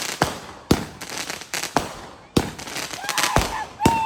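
Consumer multi-shot firework cake going off: a rapid series of sharp bangs, roughly one every half second, with crackling in between. A high, steady tone joins in near the end.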